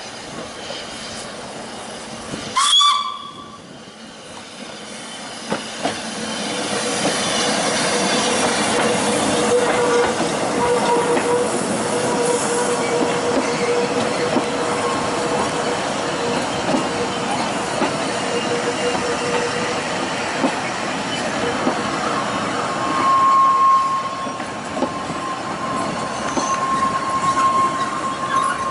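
Ffestiniog Railway narrow-gauge steam train: a short, loud whistle blast about three seconds in. Then the running noise of the moving train builds and holds steady, with a long, steady high tone through much of it.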